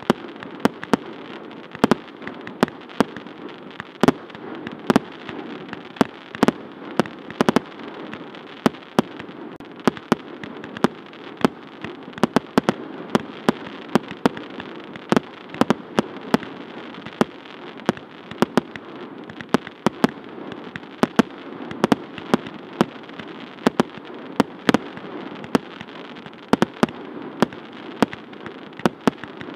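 A 30 mm, 100-shot category 4 firework battery firing continuously, with a sharp report every half second or so over a steady crackling hiss from the red and green comet tails and the gold crackling chrysanthemum bursts.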